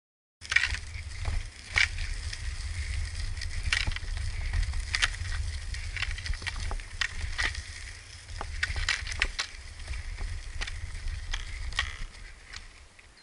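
Cross-skates on pneumatic tyres rolling over loose gravel, with many irregular sharp clicks and crunches of stones and pole tips under a steady low rumble. The sound starts suddenly just under half a second in and fades near the end.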